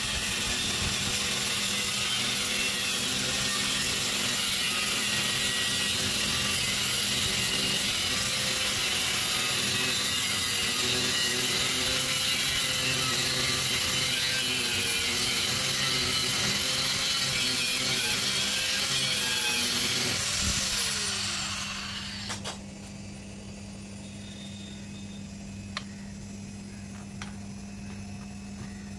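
Angle grinder with a cutting disc slicing through the steel shell of an air-conditioner compressor: a loud, steady, hissing cut with the motor's whine held under load. About twenty seconds in, the grinder is switched off and winds down, leaving a low steady hum and a few faint clicks.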